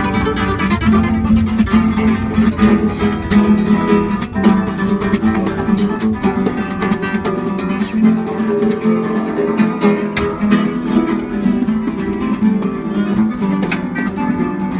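Spanish guitar played live in flamenco style, with continuous plucked and rapidly strummed chords.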